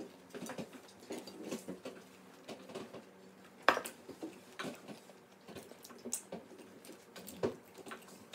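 Eating noises from chicken wings eaten by hand: chewing and mouth smacks with scattered clicks and taps on a plate, the sharpest one just under four seconds in.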